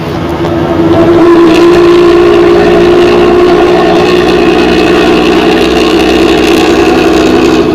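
Intercity bus with a modified 'ngorok' (snoring) exhaust, its engine held at high revs: a loud, rough, steady exhaust note that swells about a second in and falls away at the end.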